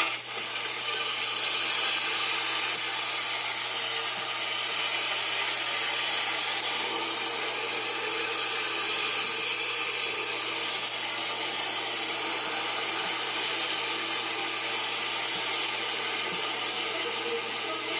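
Outdoor dual-tone tornado warning siren sounding a steady, buzzing tone with many overtones, swelling up over the first couple of seconds and then holding. It is a tornado warning alert.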